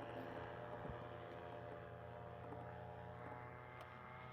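Paramotor's two-stroke engine idling with a steady drone, easing slightly quieter toward the end.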